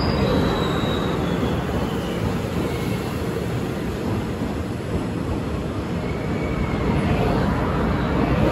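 Taiwan Railway EMU500 electric commuter train pulling into a station: a steady rumble of wheels on rail, with faint thin high squeals now and then.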